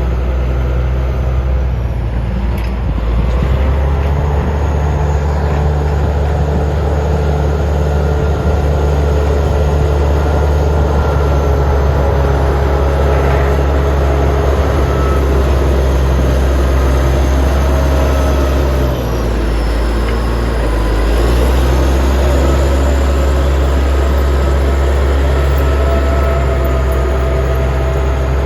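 Bulldozer's diesel engine running hard, a loud, steady low drone. Its pitch and level dip briefly about two-thirds of the way through, then rise again.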